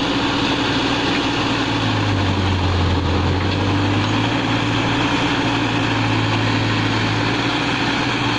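Backhoe loader's diesel engine running steadily, its low note dipping slightly for a couple of seconds about two seconds in.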